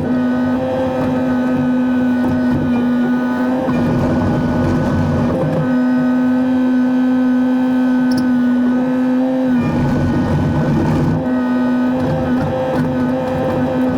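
Digger's diesel engine running steadily under load, with a strong steady hydraulic whine. The sound shifts a few times as the machine works.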